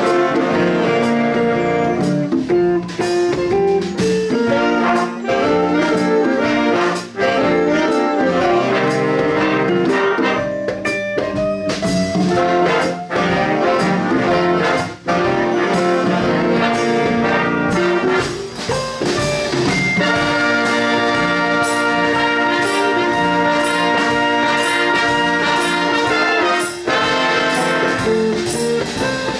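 Jazz big band playing a full-ensemble passage: trumpets, trombones and saxophones sound sustained chords over a steady drum beat.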